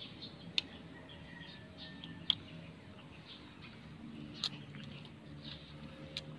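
Faint low steady hum with a few scattered sharp clicks, the sharpest a little over two seconds in.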